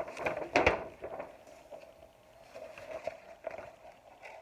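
Handling of a large picture book as a page is turned: paper rustling, with a knock about half a second in.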